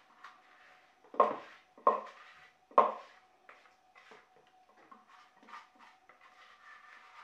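Spatula knocking three times against a plastic food processor bowl, sharp and loud, then lighter scraping and tapping as ground egg and eggshell mixture is worked out of the bowl.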